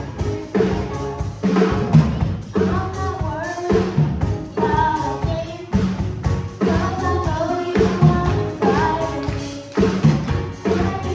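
Children's choir singing an upbeat gospel song with live drum kit and band accompaniment, the drums keeping a steady beat.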